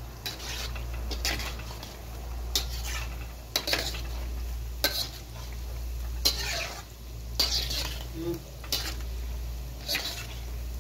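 Gulab jamun dough balls deep-frying in oil in a wok with a steady sizzle, stirred with a metal ladle in brief strokes about once a second. The oil is at medium heat, so the balls fry slowly.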